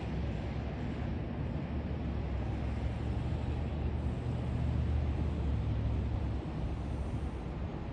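Low engine rumble of a motor vehicle on the street, building about a second in and fading out near the end.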